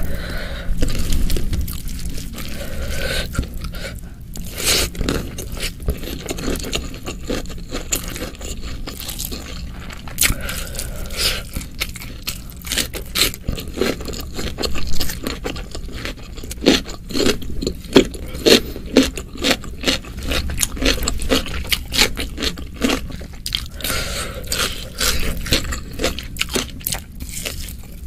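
Close-miked eating sounds of a person eating spicy beef stir-fry with rice by hand: fingers squelching rice in the oily sambal, then steady wet chewing with crunches and mouth clicks.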